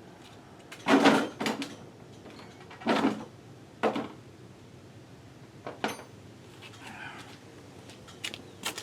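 A few short metallic clanks and knocks of a hand wrench and bolts against the brake caliper and bracket while the caliper bolts are tightened by hand. The loudest comes about a second in, with others about three, four and six seconds in.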